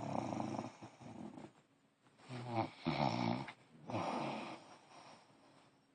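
A man snoring in his sleep: several snores in a row, each under a second long, growing fainter toward the end.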